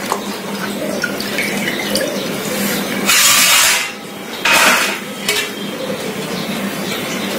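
Water sloshing and splashing in a steel pot as okra pods are rubbed and washed by hand, with two louder splashes near the middle.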